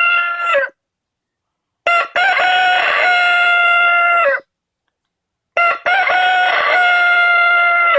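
Kellogg's Corn Flakes novelty alarm clock sounding its alarm: a loud electronic rooster crow, each about two and a half seconds long and ending in a falling tail, repeated identically with about a second of silence between crows.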